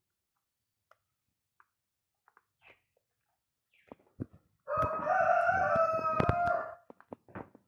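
A rooster crowing once, a single drawn-out call of about two seconds that starts near the middle, with a few sharp clicks around it.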